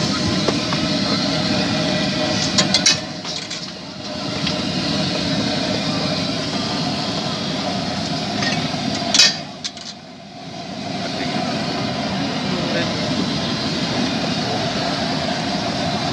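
Steady street noise of traffic and people talking, with a couple of brief sharp clatters about three and nine seconds in.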